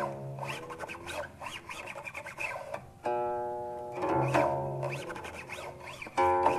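Guqin solo: plucked notes whose pitch slides up and down as the fingers glide along the strings, with audible rubbing between notes. A new, strongly plucked note rings out about three seconds in and another near the end.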